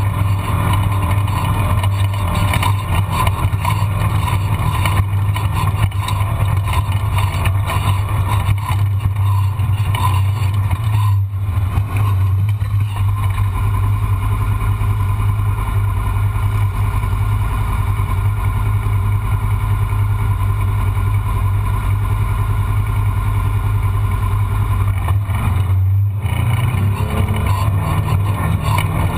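Vehicle engine running steadily at an even speed, a continuous low drone, with brief breaks about 11 and 26 seconds in.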